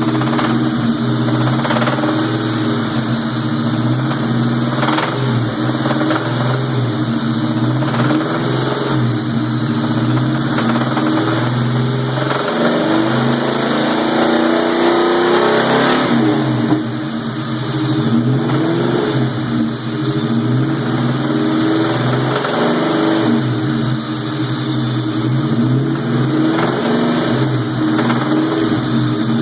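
2003 Ford Mustang SVT Cobra's supercharged 4.6-litre V8 running and being revved, its pitch rising about halfway through and dropping back. A knock is heard between 1900 and 3000 rpm, which the owner suspects is a rod bearing.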